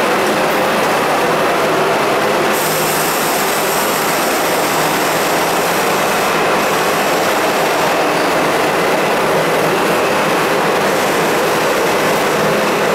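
Budd-built R32 New York City subway train moving along the station platform: a steady, loud din of steel wheels on rail. A higher hiss joins about two and a half seconds in.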